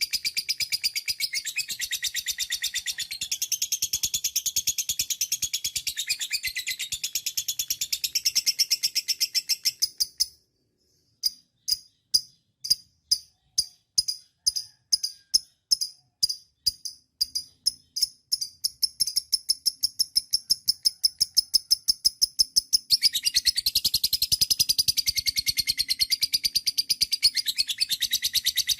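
Lovebird giving its long 'ngekek' chatter, a rapid, high-pitched run of notes. About ten seconds in it breaks off. It starts again as separate sharp chips that quicken into a continuous rattle, then swells back into dense chatter near the end.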